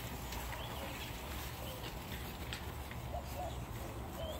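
Olde English Bulldogge puppies tussling, with a few faint short squeaks and scattered clicks over a steady low hum.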